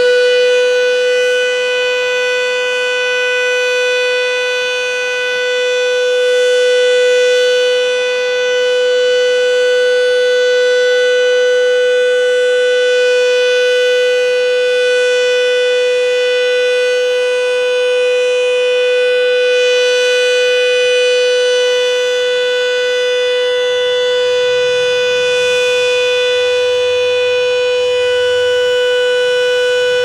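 Federal Signal Model 2 electromechanical siren sounding a steady alert, holding one loud, unchanging tone at full speed.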